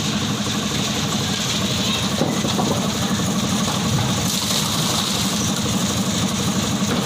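Engine of construction machinery running steadily at a constant speed.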